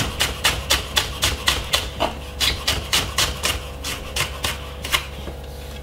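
Kitchen knife chopping spring onion on a wooden cutting board: quick, even strokes about four a second, thinning out and stopping near the end.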